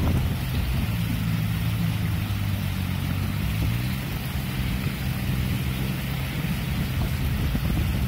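A motor engine running steadily with a low hum, over a constant hiss.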